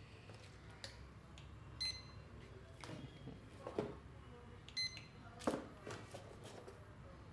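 Handheld barcode scanner giving two short high beeps about three seconds apart, each one the confirmation of a successful scan as a product is read into the POS bill. A few sharp knocks come in between.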